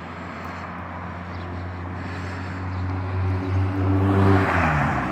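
Vehicle engine running with a steady low hum that grows louder, joined by a rising rush of noise and a change in engine pitch near the end.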